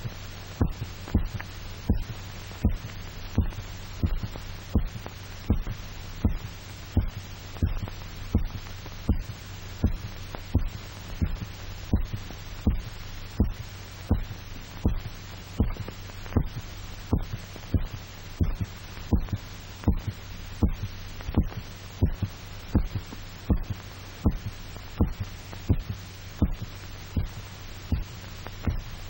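A dog's heartbeat, amplified: steady, even thumps at about one beat a second while its blood is drained off. A steady low hum runs underneath.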